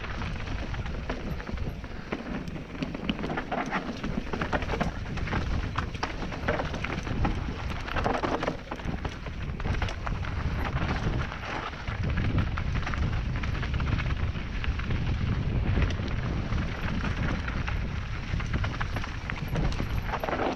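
Mountain bike riding fast down a loose gravel and dirt trail: wind buffeting the on-board microphone with a low rumble, over a constant run of tyre crunch on stones and rattles from the bike over the bumps, busiest about eight to nine seconds in.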